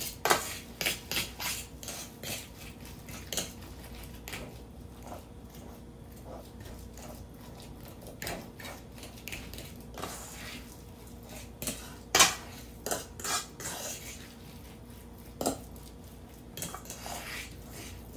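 A fork clinking and scraping against a stainless steel mixing bowl while a soft mashed-potato and egg filling is stirred: irregular clinks, thickest in the first few seconds, sparser in the middle, busier again later, with one sharp louder clink about twelve seconds in.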